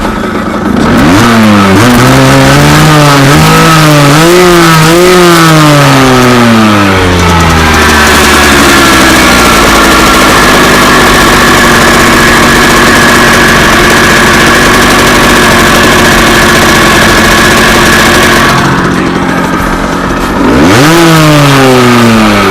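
Rieju RR motorcycle engine revved in a series of quick up-and-down blips, then held at high, steady revs for about ten seconds. The revs drop off about nineteen seconds in and rise sharply again near the end.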